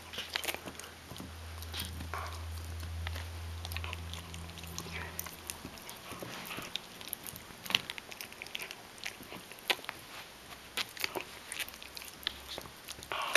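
Shetland sheepdog gnawing a chew bone: irregular, crunching bites and sharp clicks of teeth on the hard chew, some louder than others.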